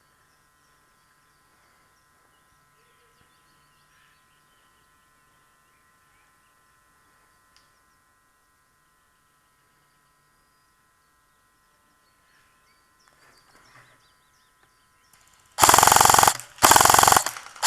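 Mostly faint background, then near the end two short full-auto bursts from an airsoft G&P M4A1 electric rifle, each under a second.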